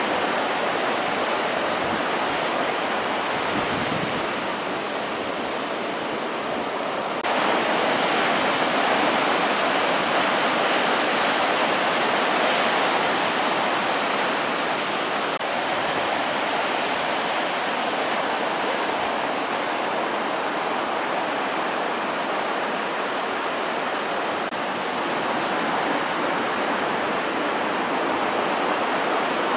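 Steady rush of small surf breaking and washing onto the beach, its sound stepping abruptly brighter and louder about seven seconds in.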